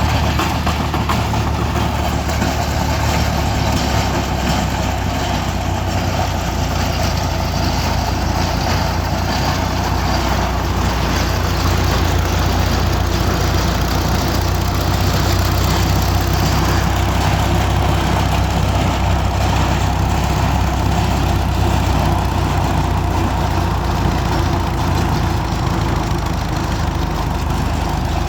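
Borewell drilling rig's engine running steadily at a constant speed, a loud, even hum with no letup.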